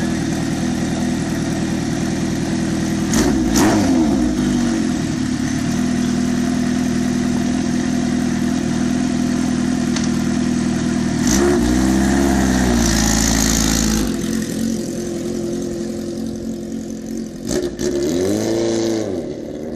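Kawasaki Ninja H2R's supercharged 998 cc four-cylinder engine idling and being revved up and back down three times: a short blip about three seconds in, a longer, louder rev around the middle with a hiss over it, and another blip near the end.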